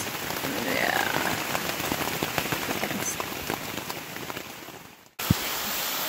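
Rain falling on a tent, heard from inside: a steady hiss with many separate drops ticking on the fabric. It cuts off suddenly about five seconds in, followed by a single thump.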